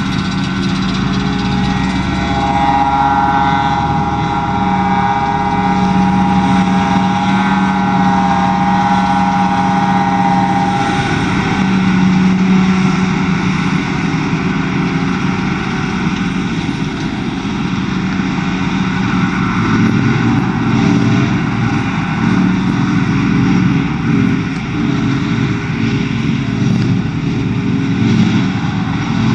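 John Deere 7750i self-propelled forage harvester running under load as it chops grass for silage and blows it into a trailer, with the tractor alongside, a steady heavy engine drone. A high whine stands out over the drone from about three to eleven seconds in.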